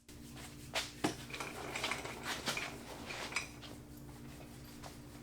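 A handful of light clinks and clicks, as of small hard objects being handled, over a steady low hum. The clicks come irregularly and are busiest in the first few seconds.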